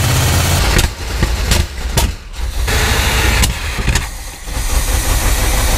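An old bread truck's 350 V8 runs rough with its engine cover off. It stumbles and nearly dies about a second in, again around two seconds and about four seconds in, each time picking back up. A few sharp cracks come in between.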